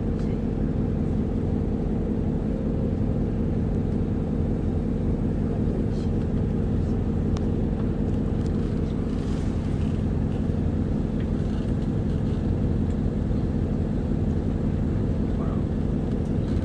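Isuzu Erga Mio city bus running, heard from inside the cabin: a steady diesel engine hum at an even pitch over low road rumble.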